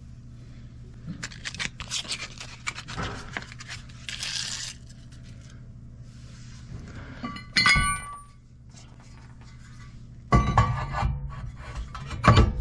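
Metal tools and parts being handled, clinking and scraping, with one sharp ringing metal clink a little past halfway and a cluster of loud clanks near the end, over a steady low hum.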